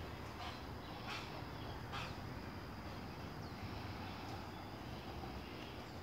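Woodland park ambience: a steady low background rumble with a few short bird calls, the clearest about one and two seconds in.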